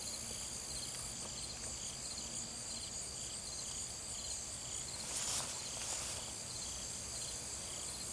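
Insects chirping outdoors: a steady high-pitched drone with short chirps repeating at an even pace, and a brief rustle about five seconds in.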